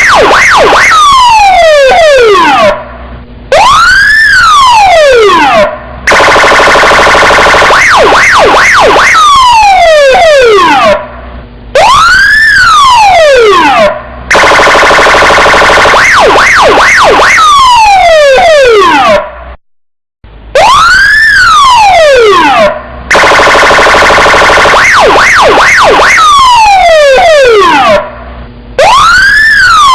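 Police car siren cycling through a repeating sequence about every eight seconds: a harsh steady blare with quick pips, a few falling sweeps, then one rising-and-falling wail, with brief breaks between. It cuts out completely for a moment about two-thirds of the way through.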